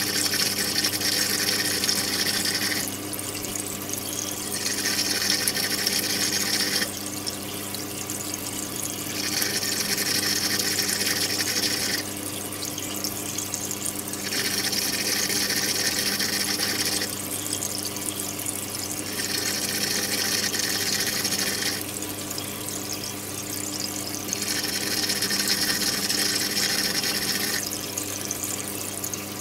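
Saltwater aquarium running: a pump hums steadily under rushing, trickling water whose hiss swells and drops in a regular cycle, about three seconds strong and two seconds softer.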